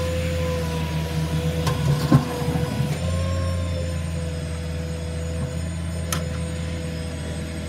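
Flatbed tow truck running, a steady low drone with a thin whine over it. A brief clatter about two seconds in and a sharp click a few seconds later.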